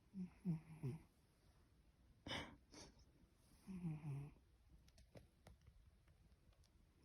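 Sleeping cat snoring with a human-like snuffle: two pitched snores that waver and fall in pitch, about three and a half seconds apart, with a short sharp snort of breath between them.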